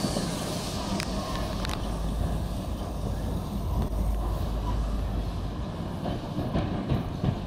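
Small steam locomotive moving slowly along the track, a steady low rumble with a couple of sharp clicks.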